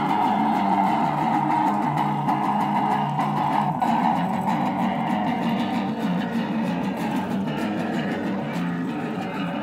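Electric guitar played through amplifier speaker cabinets, a steady, continuous wall of sustained guitar sound.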